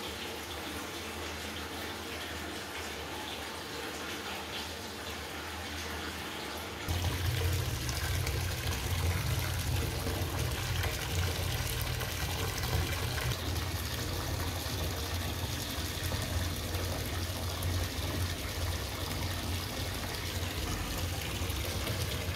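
Water running from the tap into a bathtub as it fills, a steady rushing that becomes louder and closer about seven seconds in.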